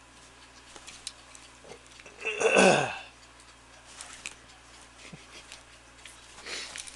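Light, irregular clicks and clinks of a metal pocket watch and its chain being pawed and batted by a cat on a bedspread. About two and a half seconds in comes one short voice sound lasting under a second, with a fainter one near the end.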